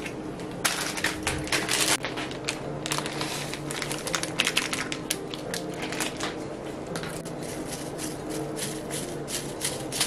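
Dried roasted seaweed (gim) being crumbled by hand over a pot of udon, a dense, irregular crinkling crackle, with soft background music underneath.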